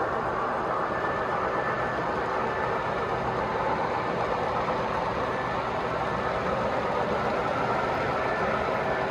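O gauge three-rail model trains running on a layout: a steady, unchanging rumble of wheels and motors on the track.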